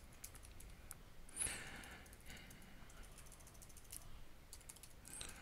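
Faint typing on a computer keyboard: scattered keystroke clicks in short runs while a login email and password are entered. A brief breathy noise about one and a half seconds in.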